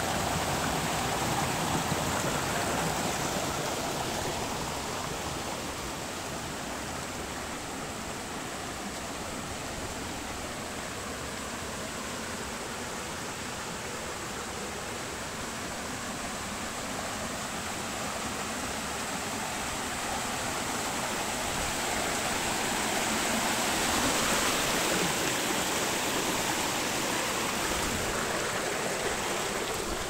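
Shallow mountain stream rushing over rocks and small cascades in a steady flow. It grows louder for a few seconds a little past the middle.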